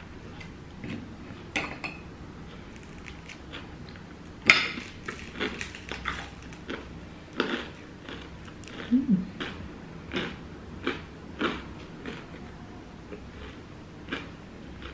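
Crusty bread being torn apart by hand and eaten: a series of short sharp crackles of breaking crust and chewing, the loudest about four and a half seconds in.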